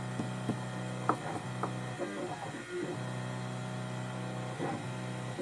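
ITL electronic key-cutting machine running a cut cycle with no key clamped, its motors giving a steady hum whose tones shift as the carriage moves, with a few light clicks. It runs on a workbench lined underneath with sound-deadening material.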